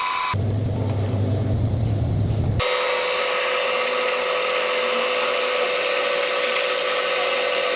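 Workshop machinery running: a low steady hum for about two seconds, then a sudden change to a brighter, noisier whirr with a steady whine.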